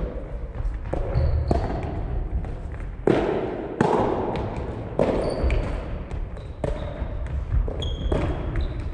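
Soft tennis rally: the soft rubber ball struck by racquets and bouncing on the wooden gym floor, a sharp hit every second or so, echoing in a large hall. Brief high squeaks of shoes on the floor come now and then.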